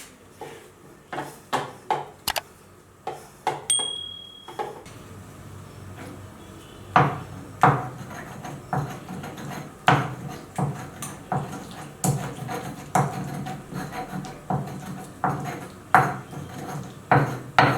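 Kitchen utensils and cookware being handled: scattered knocks and taps, then from about seven seconds in a fairly regular run of thumps and knocks, about one or two a second.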